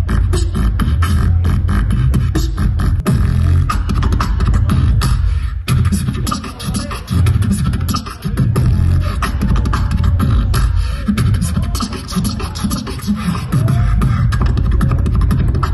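Beatboxing into a microphone and played through a venue PA: a fast run of kick, snare and hi-hat sounds made with the mouth over heavy bass, with a brief break about five and a half seconds in.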